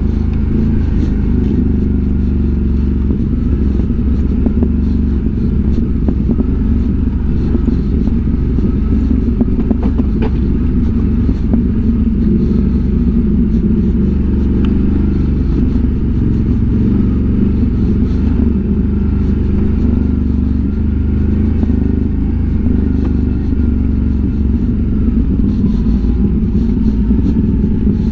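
ATV engine running steadily with the quad under way, a low, even drone that neither rises nor falls much.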